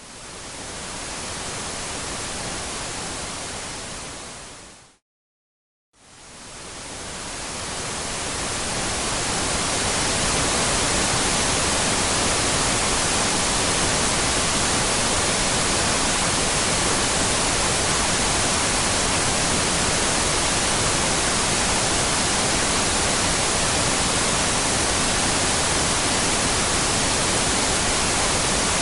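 Television static: an even hiss that fades in, cuts out for about a second, then swells back up and holds steady.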